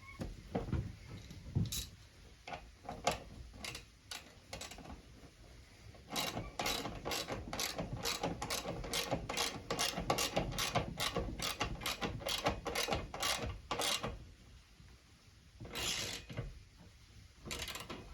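Hand socket ratchet clicking as a bolt is run in and tightened: a few scattered clicks, then a steady run of about three clicks a second for some eight seconds, and two short bursts near the end.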